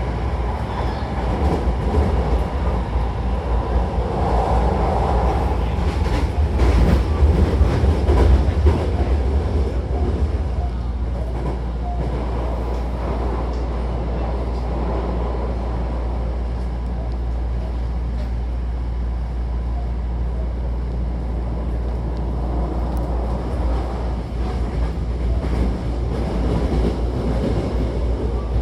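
Hankyu Takarazuka Line train running on the track, heard from inside the car: a continuous low rumble of wheels and running gear. It is heavier and more uneven for the first ten seconds or so, then settles to a steadier rumble.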